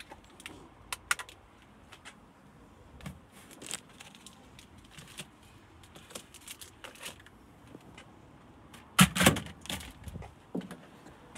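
Scattered small clicks and rattles, with a louder burst of clattering knocks about nine seconds in.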